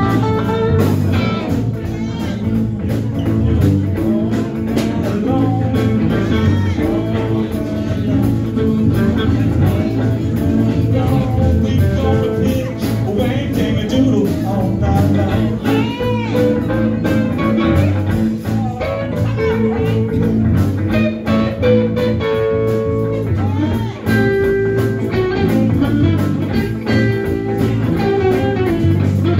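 Live blues band playing: electric guitars, keyboard, bass and drums, with a lead part bending notes up and down over the groove.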